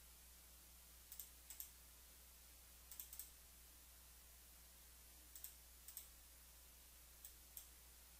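Computer mouse clicks, mostly in pairs, a second or two apart, over a faint steady low hum.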